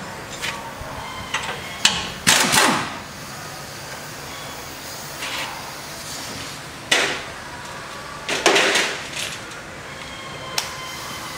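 Scattered metal clanks and scrapes from hand tools working on the bolts of a steel snowplow mounting bracket under a truck, the loudest about two and a half and eight and a half seconds in.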